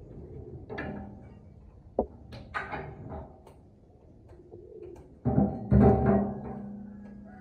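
Metal knocking and clanking inside a chopping machine's steel housing as parts are handled during blade work. The loudest strike, a little after five seconds in, leaves a low ringing tone that fades slowly.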